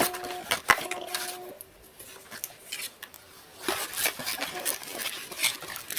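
Cardboard trading-card blaster box being handled and opened: scattered clicks, taps and rustles, growing busier in the last two seconds. A short steady whine in the first second and a half is the camera's zoom motor.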